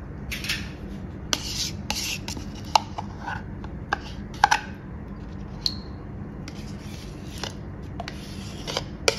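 Spoon scraping and scooping yogurt into a bowl, with a few sharp clinks of the spoon against the bowl, over a low steady hum.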